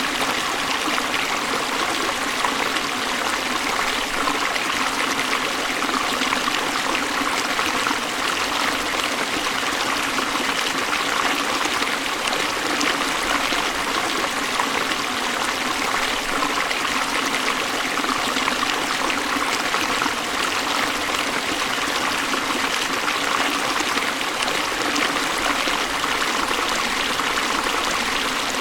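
Flowing river water rushing steadily, an even sound without breaks or changes.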